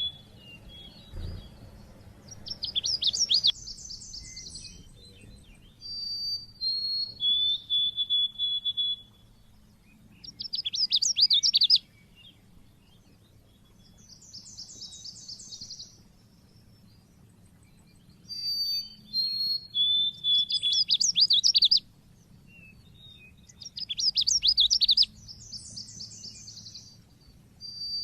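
A white-eye (pleci) singing: short high whistled notes alternate with fast, sharp chattering trills, with a new phrase every few seconds. A faint low hum lies underneath.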